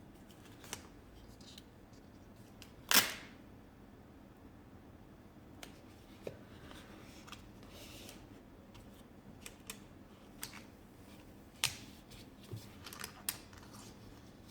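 Scattered small clicks and rustles of duct tape and thin gardening wire being handled and wound around a plastic canister, with one louder sharp click about three seconds in.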